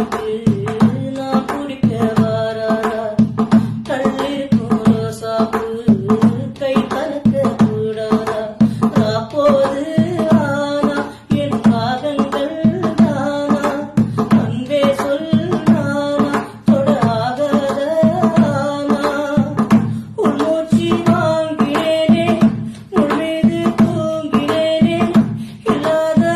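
A Tamil song: a voice singing a melody over a steady, driving drum beat.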